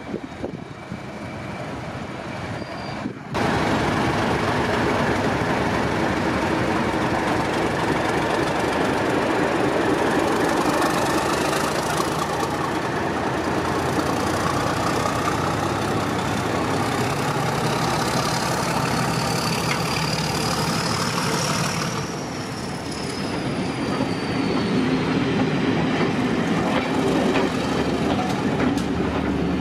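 Heritage diesel locomotive running with a train. The sound jumps up suddenly about three seconds in. Later a high whine rises and then falls away.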